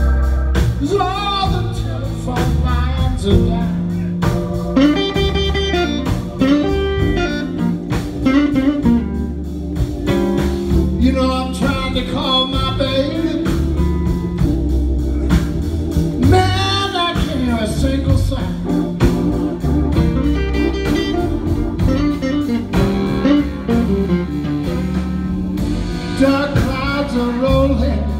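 Live blues band playing a slow blues: a man singing into a microphone over electric guitar and organ.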